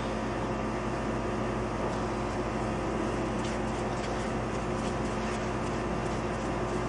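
Steady mechanical hum with an even hiss, like a fan or motor running, with a few faint light ticks.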